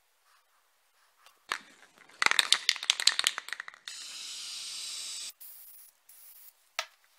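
An aerosol spray-paint can is shaken, its mixing ball rattling fast, then sprays black paint in a steady hiss for about a second and a half, followed by two shorter, quieter bursts. A sharp click comes near the end.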